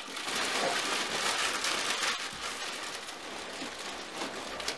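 Clear plastic packaging crinkling and rustling as it is handled and pulled up out of a cardboard box, louder for the first couple of seconds and then easing off.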